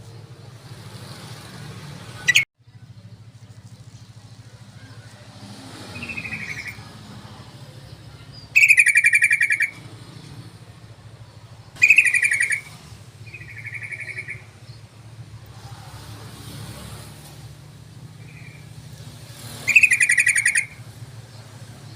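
Yellow-vented bulbul (trucukan) calling in a lure recording: three loud, bubbly, chattering phrases of about a second each, with softer calls between them. A steady low hum runs underneath, and there is a sharp click about two seconds in.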